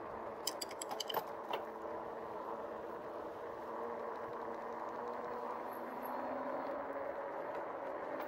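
2018 RadRover fat-tyre electric bike riding on pavement and picking up speed: a steady hum from the hub motor and tyres, with a few light clicks and rattles in the first second and a half.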